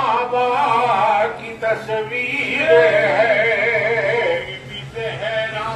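A man singing a devotional salam with long, wavering, ornamented notes, over a steady low hum.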